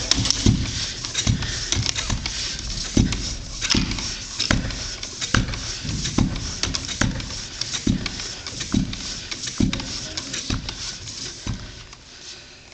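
Slow, regular thumps, a little under one a second, fading toward the end.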